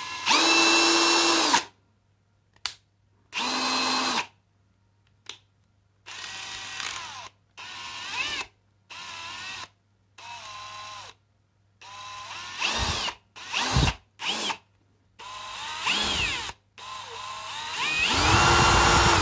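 Brushless motor and gearbox of a Parkside Performance PSBSAP 20-LI A1 cordless hammer drill running free in about a dozen short trigger pulls. Each pull is a whine that holds steady or speeds up and slows down, and several wind down as the trigger is let go. The last run, near the end, is the longest and loudest.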